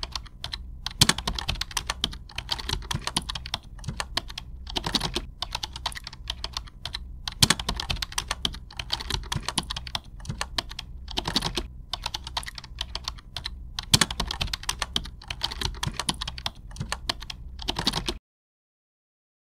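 Rapid computer keyboard typing: dense runs of key clicks broken by short pauses, stopping abruptly near the end.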